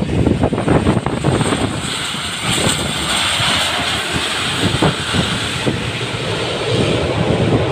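C-146A Wolfhound (Dornier 328) running on its twin Pratt & Whitney PW119 turboprops as it moves along the runway, a steady, loud propeller-and-turbine noise with a hissing whine that swells around the middle.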